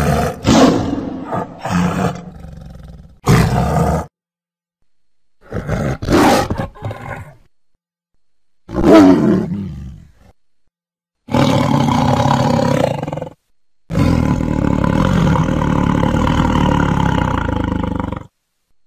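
A run of synthetic Torvosaurus dinosaur roar sound effects: six separate calls split by silence. One call falls in pitch, and the last is long and steady.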